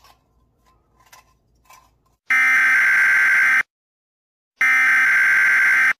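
A loud buzzing test-pattern tone, the 'technical difficulties' sound effect used with TV colour bars, sounding twice for just over a second each with about a second's gap, starting about two seconds in. Before it come a few faint clicks.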